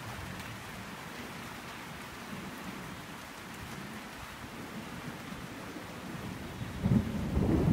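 Steady rain falling, then a low rumble of thunder swelling up near the end and getting much louder.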